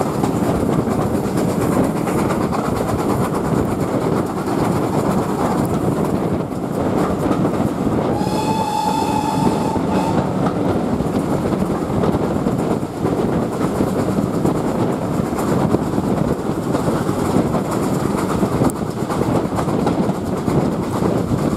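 Steady rumble and rattle of a steam-hauled train's coach running on the rails, heard from an open carriage window. About eight seconds in, a GWR steam locomotive whistle sounds once for about two seconds, rising slightly in pitch.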